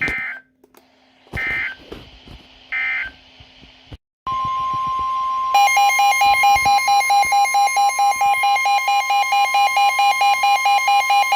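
Emergency Alert System tones: three short bursts of digital data screech, the end-of-message code, about 1.4 seconds apart. About four seconds in a steady alert tone starts, and a second later a loud, harsh pulsing alarm joins it, announcing the next warning.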